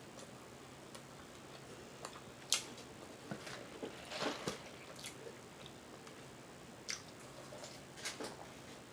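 A person chewing food close to the microphone: scattered wet mouth smacks and clicks over a faint background, the loudest about two and a half seconds in and a short cluster just after four seconds.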